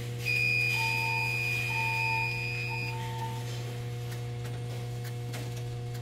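Electronic buzzer of a Siemens Cerberus PRO fire alarm panel sounding: a steady high-pitched tone for about two and a half seconds, overlapped by three shorter, lower beeps. A steady low electrical hum runs underneath.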